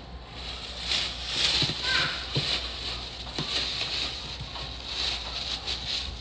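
Thin plastic trash bag rustling and crinkling as it is opened and stretched over the rim of a trash can, with a few soft knocks as it is worked on.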